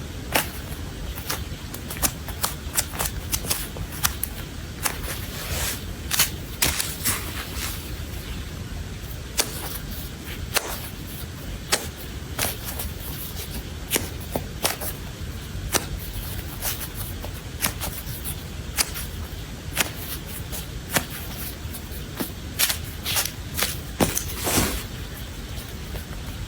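Irregular sharp clicks and taps, sometimes in quick clusters, over a steady low hum.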